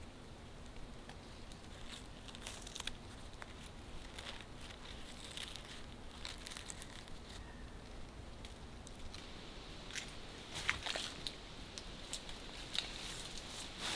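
Faint handling sounds of cord being worked and tied around a birch stick: soft rubbing and crinkling with scattered light crackles and clicks. A few sharper cracks come in the last few seconds.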